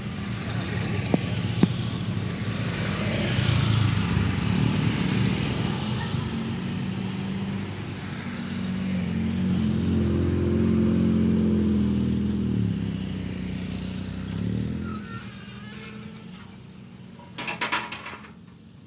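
Motorcycles and a car passing over a railway level crossing, engines running as they go by, the loudest pass in the middle. Near the end comes a short burst of rapid rattling as the striped crossing barrier is brought down across the road.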